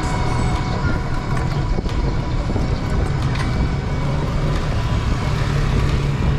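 Steady rumble of wind and road noise from riding in a small covered electric trike moving along a street, with a few light clicks and rattles.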